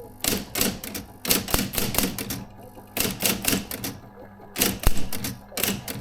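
Adler Junior Electric electric typewriter typing: sharp key strikes at a few per second, briefly pausing twice, over the steady hum of the running typewriter motor.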